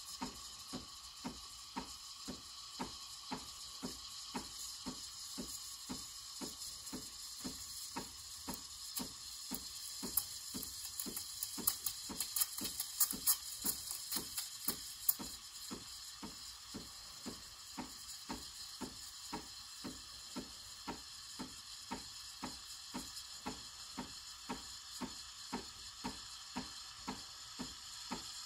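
Breville Barista Express steam wand hissing steadily in a pitcher of milk, with a regular knock about twice a second from the machine. For a few seconds around the middle the hiss turns louder and crackly.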